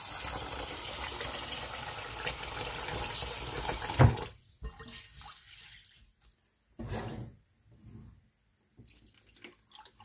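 Kitchen mixer tap running water into a stainless steel sink, then stopping abruptly about four seconds in with a knock. After that, faint intermittent swishing as a hand stirs soaked sticky rice in the water in a glass bowl.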